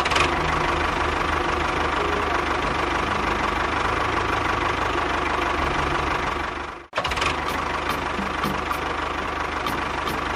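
Engine-like machine running steadily with a fast low pulsing. It cuts out abruptly about seven seconds in and starts again at once.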